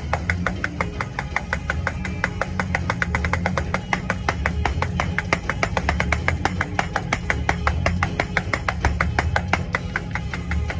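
Fast gospel praise-break music: a drum kit played with sticks in a rapid, even beat of about eight strokes a second, over a steady low bass.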